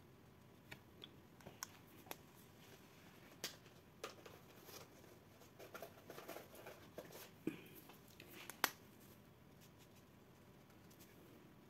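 Faint handling sounds of card-making at a table: scattered light clicks and taps with brief paper rustling, the sharpest click near the end.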